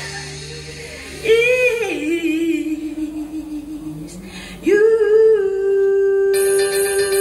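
A woman singing into a microphone over a backing track: a short phrase, then a long held note with vibrato from about two-thirds of the way in. Bright, high sustained accompaniment comes in near the end.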